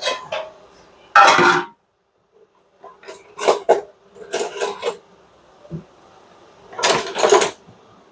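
Kitchen clatter of pots, dishes and utensils being handled: about five short bursts of knocking and scraping, the loudest a little over a second in.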